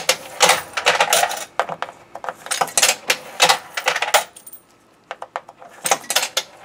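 Quarters fed one after another into a Dilling-Harris Max-Vend II vending machine's coin slot, each clinking and rattling down through the coin mechanism. A pause comes near the end before a last coin goes in.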